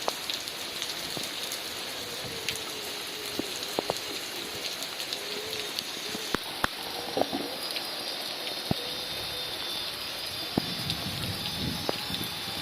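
Heavy rain falling in a steady hiss, with scattered loud drops striking close by, the loudest about seven seconds in. A faint wavering whine runs underneath in the first half.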